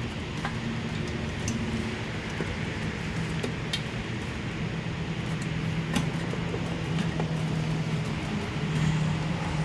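Yamaha NVX/Aerox 155's liquid-cooled single-cylinder engine running steadily at idle, with a few faint ticks.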